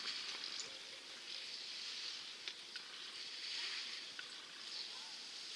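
Skis carving turns on packed snow: a steady scraping hiss that rises and fades every second or so, with a few faint clicks.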